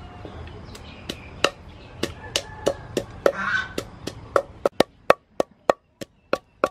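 Wooden pestle pounding chili peppers in a wooden mortar: a steady run of sharp knocks, about three a second, coming crisper and clearer in the second half.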